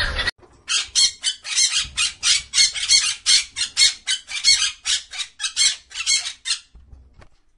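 A macaw squawking: a rapid run of short, harsh, shrill calls, about three or four a second, that breaks off near the end.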